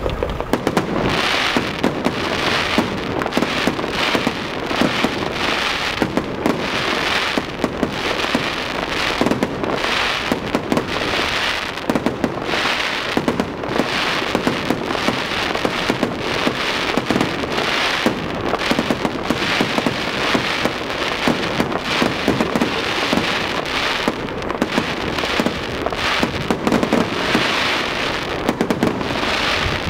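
Fireworks going off: a dense, continuous crackle of many small pops, swelling and easing every second or two.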